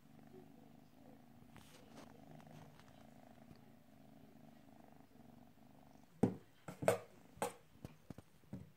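Domestic cat purring steadily. About six seconds in, several loud sharp knocks and rustles break in.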